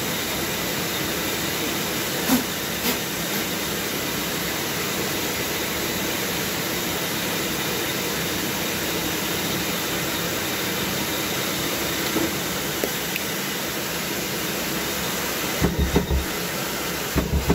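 Pégas fine-cut band saw running without cutting, a steady hum and hiss. Near the end come a few light knocks as thin wooden pieces are handled on the saw table.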